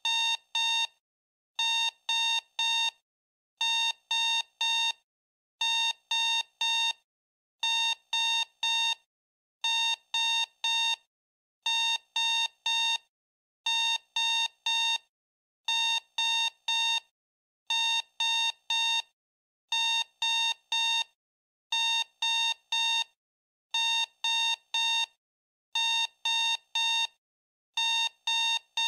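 Digital alarm clock going off: a high electronic beep sounded in quick groups of four, one group about every two seconds, repeating without change.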